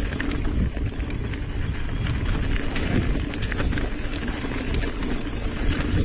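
Mountain bike riding down a dirt trail: a steady rumble of tyres and wind on a handlebar-mounted camera, with frequent sharp rattles and knocks as the bike goes over bumps.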